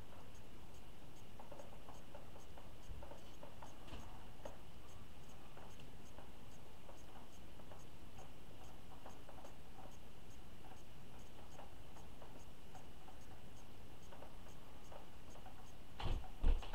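Quiet room tone with a faint, even ticking about twice a second and soft, irregular taps of acrylic paint dripping off a tilted canvas into a plastic bin. A few louder knocks come near the end as the canvas is handled.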